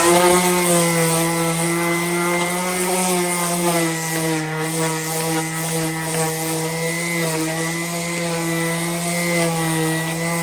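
Bauer 2.8 amp random orbital palm sander running steadily at full speed: a constant electric-motor hum and whir over a hiss.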